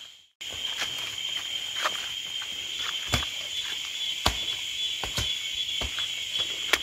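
A steady high-pitched insect chorus of two even buzzing pitches, with the scattered thuds and twig snaps of people's footsteps climbing a leaf-littered trail. The sound cuts in after a brief dropout at the start.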